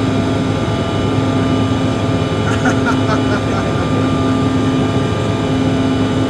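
Steady cabin noise of a CRJ700 airliner in flight shortly after takeoff: a constant rush of air and engine hum from its rear-mounted GE CF34 turbofans, with steady tones running through it.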